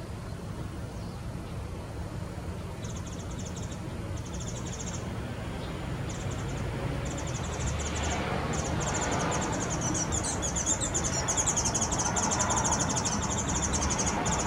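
High-pitched rapid pulsed bird trills, first in short separate bursts and then running almost continuously and louder, over a steady low rumble.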